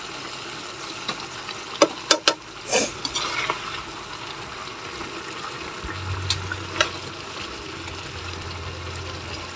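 Steady bubbling hiss of a cooking pot of boiled chicken feet, with a few sharp utensil clinks against the pot about two seconds in. A low steady hum comes in about six seconds in.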